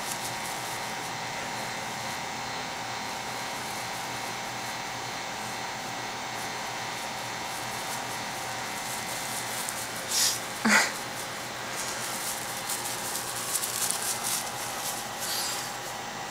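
A steady machine hum with a few fixed tones in it. About two-thirds of the way through comes a short squeal that rises steeply in pitch.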